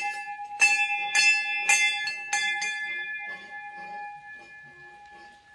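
Metal temple bell at a shrine struck repeatedly, about two strikes a second, with a clear ringing tone; the strikes stop about three seconds in and the ringing dies away.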